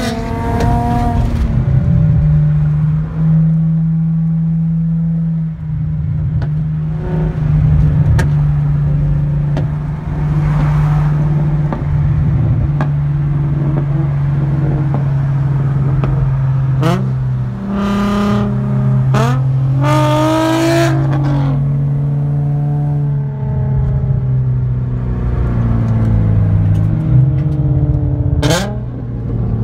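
Nissan 350Z Nismo V6 through a Tomei single-exit exhaust, heard from a following car's cabin: a steady low drone while cruising, with several sharp revs about two-thirds of the way in and one more near the end.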